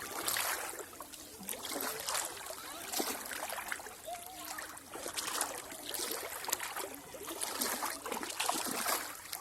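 Water splashing and trickling in uneven bursts.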